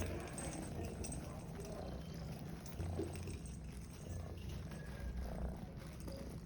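Domestic cat purring, a low steady rumble.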